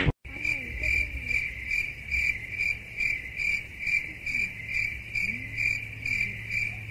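Cricket chirping steadily at an even pace, about two to three chirps a second, over a faint low hum.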